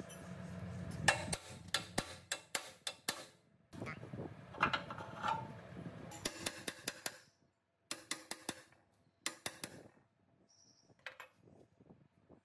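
Sharp taps and clinks of hand work on metal parts, coming in quick runs of several strokes with short pauses between. A low hum stops just over a second in.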